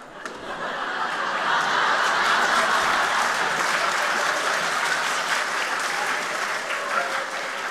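Theatre audience applauding. The clapping swells over the first second or so and then holds steady.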